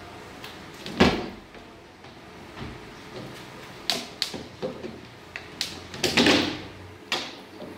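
Panels of a tool-less knock-down baby rocking crib being pulled apart and handled on a wooden workbench: a sharp knock about a second in, then a run of light clicks and taps, a scraping slide of board on board a little past the middle, and another knock near the end.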